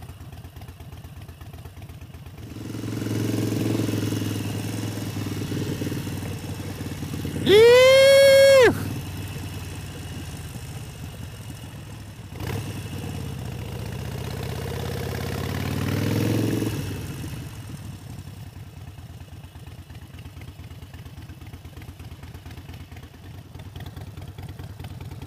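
Harley-Davidson Sportster 72's 1200 cc air-cooled V-twin running as the bike is ridden, louder twice as it accelerates, early on and again about halfway through. About seven seconds in, a loud held tone sounds for about a second, sliding up at its start and down at its end.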